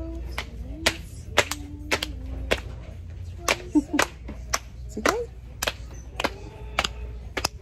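A child clapping her hands: sharp single claps, roughly two a second and slightly uneven.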